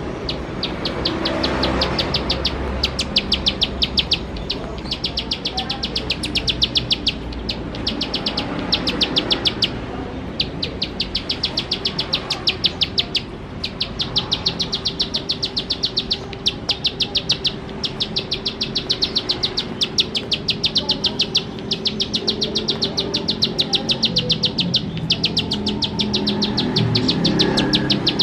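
Plain prinia (ciblek sawah) singing in rapid trains of sharp ticking notes, many a second. Each run lasts a second or two and is repeated after short pauses.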